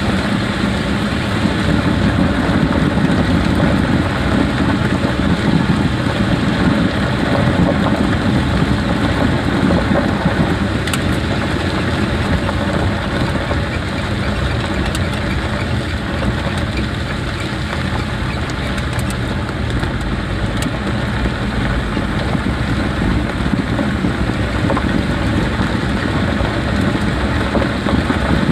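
A Jeep driving: steady road and tyre noise with the engine's hum underneath.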